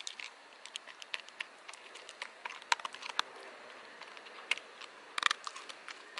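A Cocker Spaniel chewing dry kibble from a hand: irregular sharp crunches, with a quick run of them about five seconds in.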